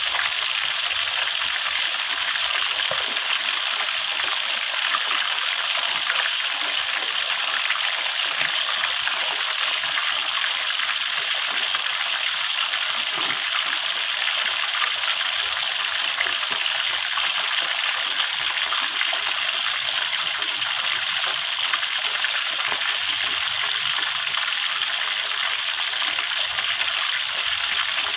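Tulingan (bullet tuna) deep-frying in hot oil in a steel wok: a steady, dense sizzle of bubbling oil.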